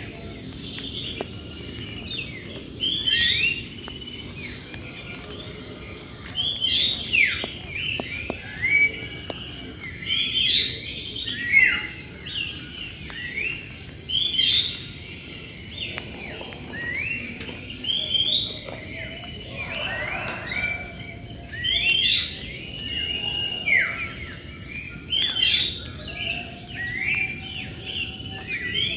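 Wild birds chirping and singing, with many short, quick sliding notes overlapping throughout. Underneath runs a steady high-pitched insect buzz.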